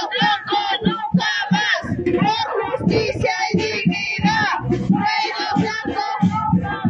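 A song playing: a high-pitched voice singing over music with a steady beat.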